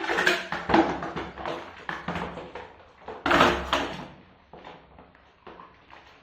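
Ceramic dinner plates clattering and knocking against each other as they are handled, with two loud knocks, one about a second in and one near the middle.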